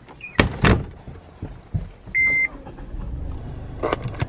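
Two loud thumps near the start, then a single short electronic beep about two seconds in. A car's low, steady running hum follows, with a few light clicks near the end as a phone is set into the centre console.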